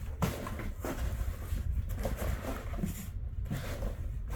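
Polystyrene packing peanuts and packaging rustling as gloved hands dig through a shipping box, with many small irregular clicks.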